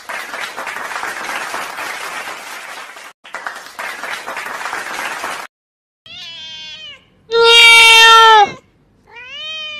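A cat meows three times, starting about six seconds in; the second meow is the loudest and longest. Before the meows there is about five seconds of steady rushing noise, which then cuts off.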